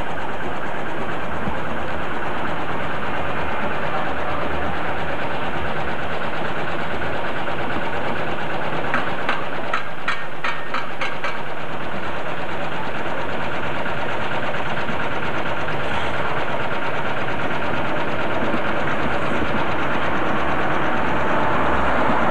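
Steady machine-like running noise, with a quick run of about eight or nine sharp taps a little before the middle.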